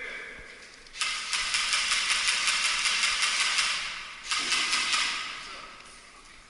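Airsoft gun firing full-auto: a long rattling burst of rapid shots starting about a second in and lasting about three seconds, then a second, shorter burst that tails off.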